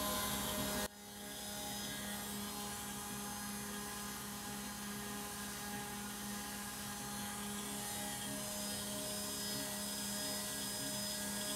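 CNC router spindle running steadily while a small end mill cuts holes in a cast aluminium plate, a whir with several steady tones. The cut runs smoothly at a slow feed. The level drops suddenly about a second in, then holds steady.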